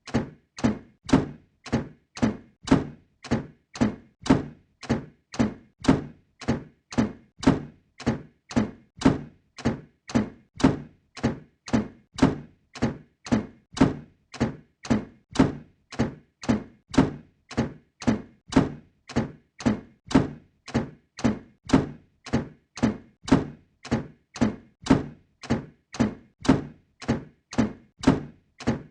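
A door slam sound effect repeated over and over, about one and a half slams a second, each a heavy thud that dies away quickly.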